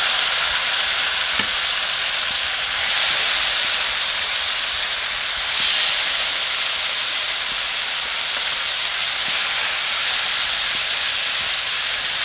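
Marinated chicken pieces sizzling steadily as they fry in hot butter in a kadai, swelling twice, about three and six seconds in, as more pieces are laid into the pan.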